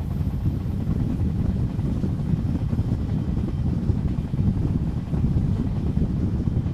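Wind buffeting a camera microphone held out of the window of a moving train: a loud, steady, low rumbling gust noise.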